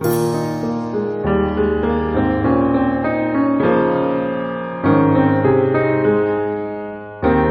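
Background music on piano or electric piano, a slow sequence of sustained chords, each struck and left to fade before the next.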